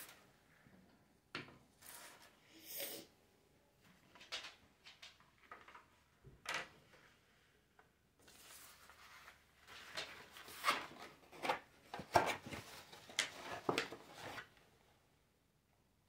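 Tabletop craft handling: a bundle of wooden skewers set down on a wooden table with light clicks and knocks. This is followed by several seconds of rustling and creasing as a stiff kraft-paper box is handled and folded. The sound stops short near the end.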